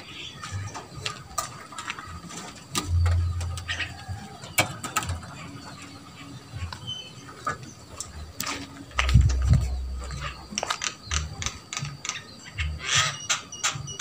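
Footsteps and handling bumps from walking, with scattered sharp clicks and ticks; near the end a quick run of clicks, about four a second.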